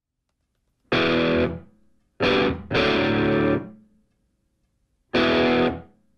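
Intro music of distorted electric guitar chords, struck four times and each held briefly, with silent gaps between them.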